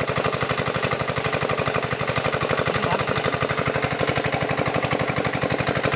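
A small engine running steadily with a fast, even beat.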